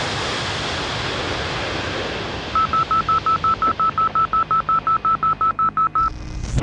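A steady rush of aircraft noise fading away. About two and a half seconds in, a rapid run of about twenty short, high electronic beeps at one pitch follows, some five or six a second, for about three and a half seconds: a locator sound effect for an animated map graphic.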